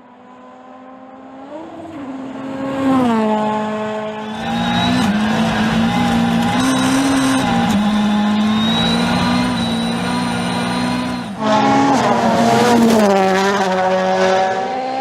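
Rally car engine at high revs, growing louder over the first four seconds as it approaches, then held loud with its pitch stepping up and down under a rushing noise. The sound changes abruptly about eleven seconds in, and another loud run of the engine follows.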